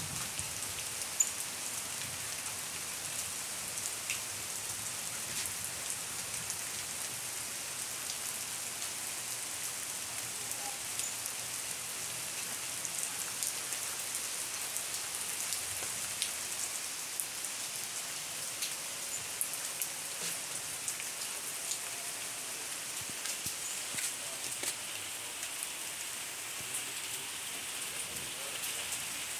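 Steady rain falling, an even hiss with scattered drops ticking on nearby surfaces. A single sharp tap sounds about a second in.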